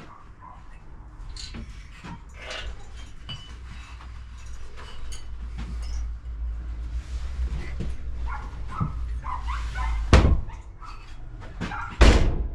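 Scattered knocks, clicks and scrapes of metal being handled as the Harley-Davidson WLA engine is lifted out of its frame. Two much louder sharp sounds come near the end, about two seconds apart.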